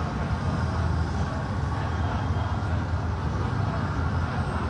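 Steady low rumble of vehicle engines moving at walking pace, with general street noise.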